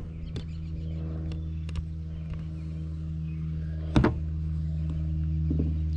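Steady low mechanical hum, with a single sharp knock about four seconds in.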